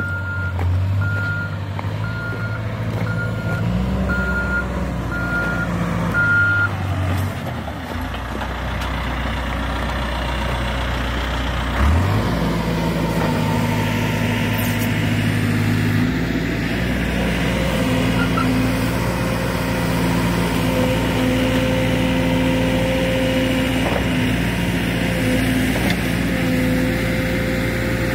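Backhoe loader's diesel engine running, with its reversing alarm beeping about once a second for the first seven seconds. About twelve seconds in the engine note rises briefly and changes, then runs steadily.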